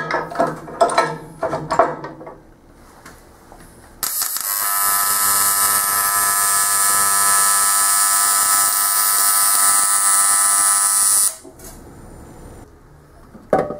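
AC TIG welding arc on aluminum sheet: a loud, steady buzz with an even pitch and a hiss over it, starting suddenly about four seconds in and cutting off about seven seconds later. Light clatter of the metal pieces being handled comes before it.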